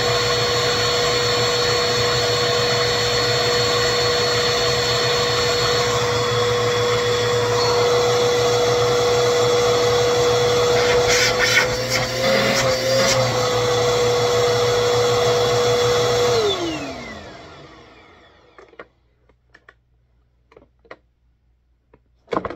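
Bissell PowerForce Helix 2191 upright vacuum running with a steady motor whine, which wavers briefly and picks up a few clicks about halfway through. Near the end it is switched off and the motor winds down over a second or two, with a falling whine, leaving a few light clicks.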